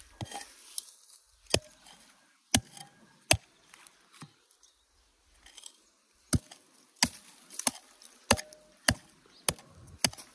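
A hand tool chopping into the ground, about ten sharp strikes with a pause midway: digging a small hole to bury a dead pigeon chick.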